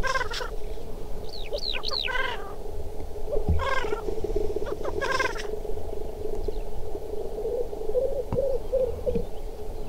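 Male black grouse at a lek: the continuous low bubbling song of displaying males, with a few short, higher calls breaking through in the first half.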